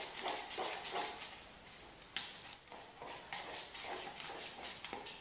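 A spoon stirring a thick honey-and-yogurt mixture in a plastic tub, clicking and scraping against the container in quick, irregular strokes. The strokes ease off for a moment about two seconds in, then pick up again.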